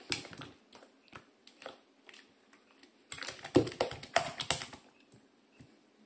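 Spatula beating a thick, cooled cream filling in a glass bowl: scattered soft wet clicks and squelches, busiest between about three and four and a half seconds in.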